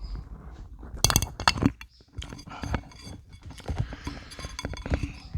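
Eating utensils clinking and tapping against a dish: a quick cluster of sharp clinks about a second in, then lighter scattered taps.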